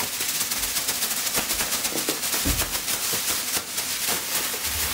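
Thin plastic shopping bag crinkling as it is shaken upside down, with small packets tumbling out of it and dropping to the floor, and a soft thump about halfway through.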